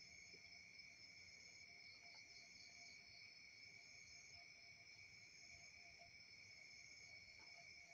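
Faint, steady high-pitched trilling of night insects such as crickets, with a short run of quick chirps about two seconds in.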